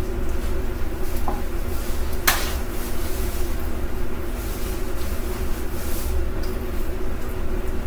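Steady mechanical hum and hiss with a constant low drone, broken by a light click just over a second in and a sharper knock a little after two seconds.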